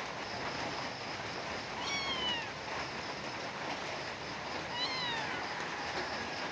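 Kitten meowing twice, two short high calls that fall in pitch, about three seconds apart, over a steady background hiss.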